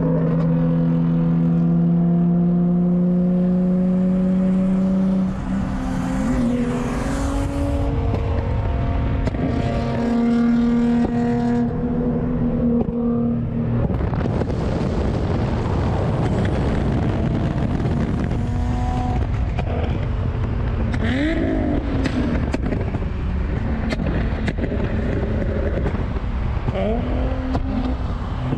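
Car engines and exhausts on a highway at speed, heard from inside a moving car: a steady engine drone at first, then engines accelerating with a rising pitch several times. A heavy rush of wind and road noise covers much of the second half.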